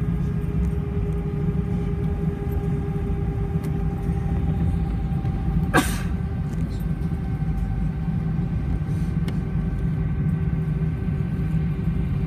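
Cabin noise of an Airbus A320 taxiing with its jet engines at low thrust: a steady low rumble with a steady whine over it. One sharp click about six seconds in.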